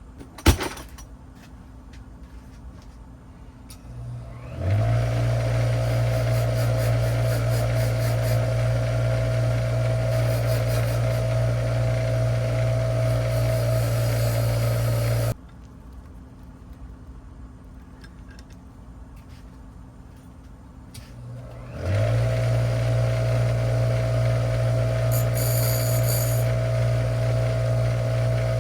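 Small rotary tool spinning up and running at a steady speed while grinding down a part so that it will fit, twice: a run of about ten seconds that cuts off abruptly, then a second run starting about 22 seconds in. A sharp click just after the start.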